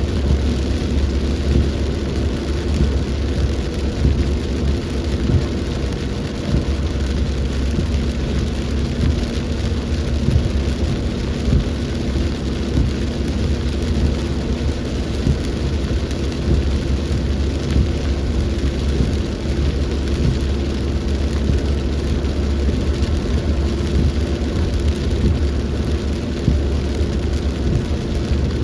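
Heavy rain falling in a storm, steady throughout, with a constant deep rumble underneath.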